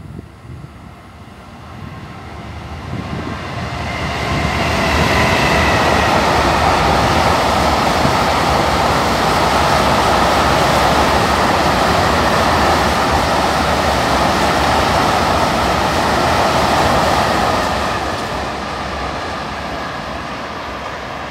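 Freight train passing at speed on the main line: the rolling noise of the wagons' wheels on the rails builds over the first few seconds, holds loud and steady for about thirteen seconds, then eases as the last wagons go by.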